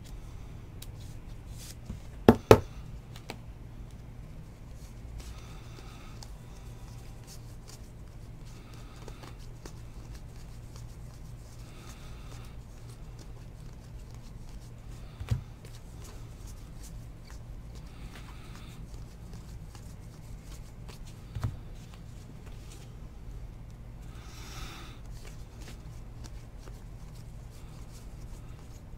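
Trading cards being handled and slid one past another in the hands, a soft rustle every few seconds, with a few sharp clicks and taps, the loudest a quick double click about two seconds in, over a steady low hum.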